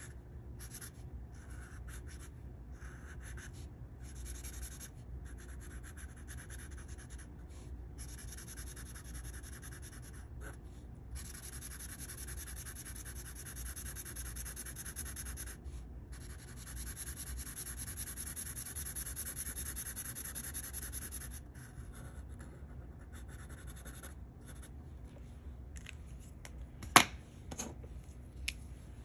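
Felt-tip permanent marker scratching on paper while colouring in: short strokes broken by brief pauses, then two longer stretches of steady back-and-forth shading. Near the end there is one sharp click, followed by two fainter ones.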